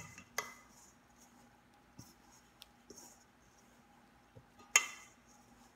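Hands working flour and water into dough in a stainless steel bowl: soft scraping and rustling of the dough. Twice a sharp knock against the metal bowl rings briefly, once just after the start and louder near the end.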